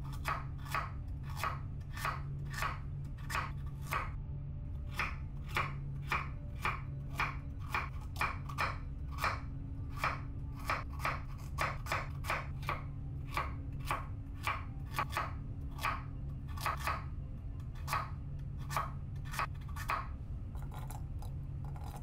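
Kitchen knife slicing whole carrots into rounds on a wooden cutting board: a steady run of sharp chops, about two or three a second, over a low steady hum.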